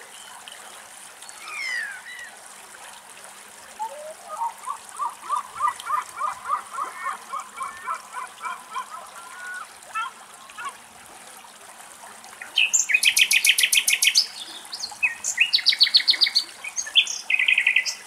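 Wild birds calling and singing. Two quick falling whistles come at the start, then a long run of rapid, evenly spaced notes, and over the last few seconds loud, fast, high trills.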